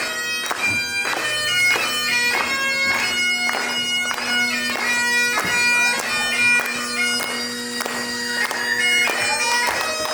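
Bagpipes playing a tune over a steady drone, with quick grace-note flourishes between the melody notes.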